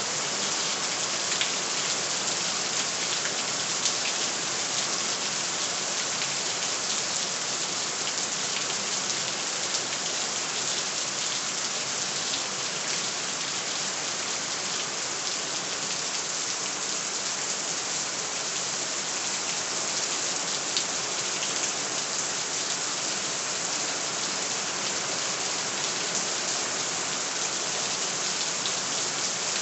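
Steady rain falling, a dense even hiss with scattered individual drops ticking on a surface.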